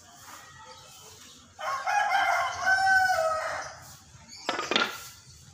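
A rooster crowing once, a single call of about two seconds that starts about a second and a half in and falls in pitch at the end. A short, sharp noise follows near the end.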